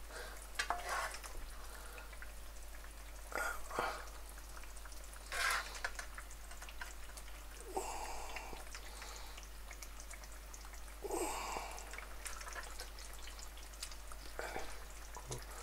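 A handful of short, soft knocks and scrapes a few seconds apart over low room noise, from a hand-held dinner plate and the frying pan beside it being handled.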